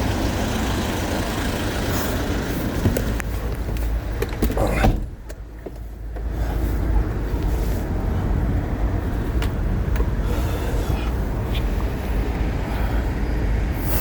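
A motor vehicle driving, a steady low engine and road rumble, with a brief drop in level about five seconds in before it carries on.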